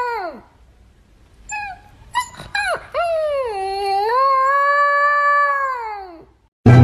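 A dog howling: a long call that falls off just after the start, a few short yips and whimpers, then a second long howl of about three seconds that slides down and dies away near the end. Music cuts in abruptly right at the end.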